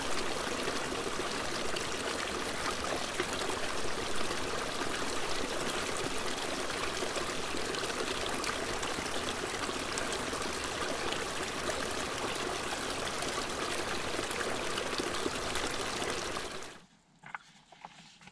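Small mountain stream trickling and splashing steadily over mossy rocks. The sound cuts off abruptly near the end.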